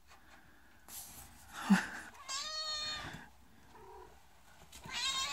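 A domestic cat meowing: one clear, drawn-out meow about two and a half seconds in. Near the end a cow starts to moo.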